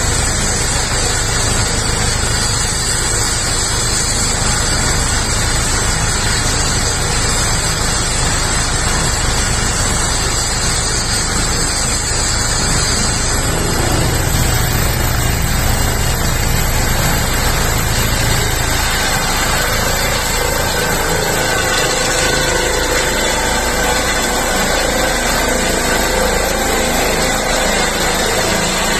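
Eurocopter EC135 air-ambulance helicopter's twin turbines and rotor running loud and steady, with a high turbine whine rising in pitch about halfway through. The helicopter lifts off and climbs near the end.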